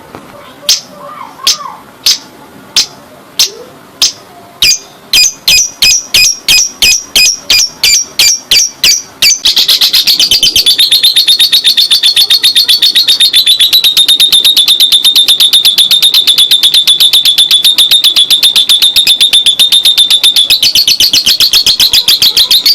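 Lovebird's long ngekek: shrill chirps, spaced apart at first, that quicken from about five seconds in. About ten seconds in they run together into one long, fast, even chattering trill.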